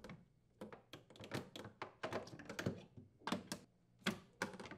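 Metal rack slide rails of a Jenn-Air wine cellar being unclipped and pulled free from the cabinet wall: an irregular run of light clicks and clacks.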